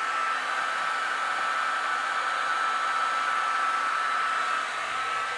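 Handheld hair dryer blowing steadily, its air noise carrying a steady high whine.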